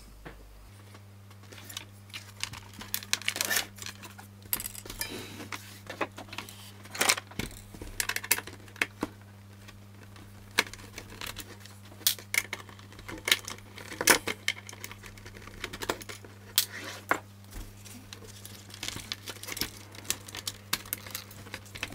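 Scattered clicks, knocks and light metallic clatter as the metal chassis of a Tandberg Sølvsuper 12 radio amplifier is handled on a workbench and its bottom-plate screws are undone with a screwdriver.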